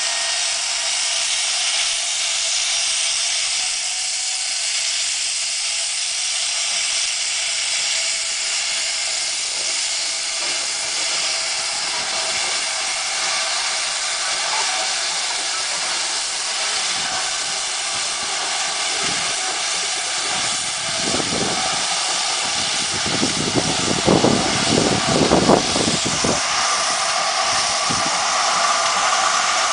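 Steady hiss of steam blowing from the open cylinder drain cocks of GWR 2-8-0 steam locomotive No. 3822 as it moves slowly. Irregular low thumps join in about two-thirds of the way through.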